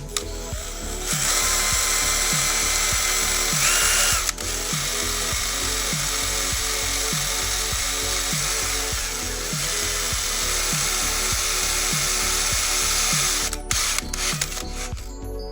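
Power drill running as it bores into a motorcycle's thermostat cover. It starts about a second in, dips briefly around four seconds, and stops near the end, over background music with a steady beat.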